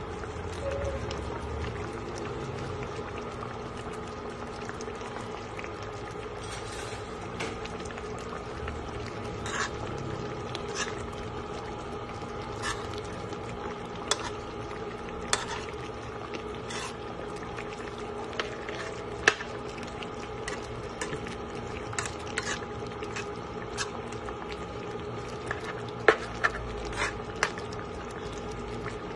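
Chicken curry simmering in a pot: the thick sauce bubbles with scattered, irregular pops, over a steady hum.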